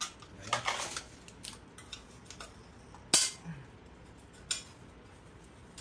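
Metal hand tools clicking and clinking on a small gasoline generator engine being taken apart: a short rattle of clinks about half a second in, one sharp loud click about three seconds in, and a softer click over a second after that.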